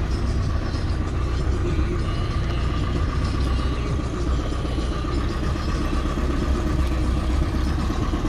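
Car engine and road noise: a steady low rumble with a faint steady whine above it.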